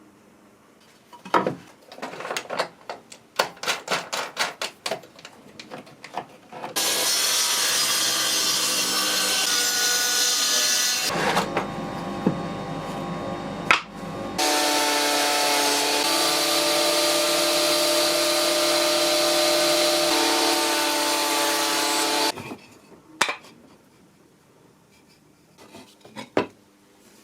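Wood being handled: a quick series of knocks and taps on wooden pieces. Then an electric woodworking power tool runs loudly and steadily for about fifteen seconds with a steady motor whine, its sound changing briefly about halfway through. It stops, followed by a few more knocks.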